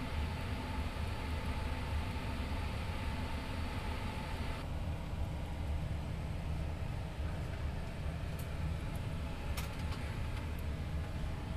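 Steady air-conditioning and fan noise in an Airbus A321 cockpit at the gate: a low rumble under a hiss, the hiss thinning about a third of the way in, with a few faint clicks near the end.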